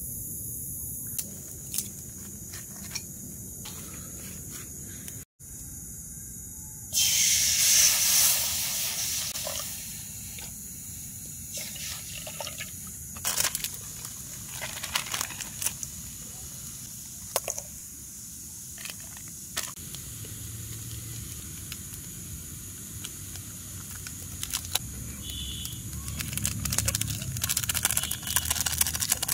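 Small wood fire crackling under an iron kadai, with a steady cricket chorus behind. About seven seconds in, water splashes and hisses loudly in the hot pan for two seconds or so, then dies down.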